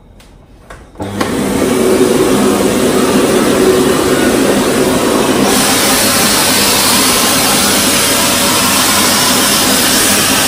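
SAUBER canister vacuum cleaner switched on about a second in, its motor coming up to speed, then running steadily with a loud rush of air over a low hum as the wand nozzle is drawn over a curtain. The hiss grows brighter about halfway through.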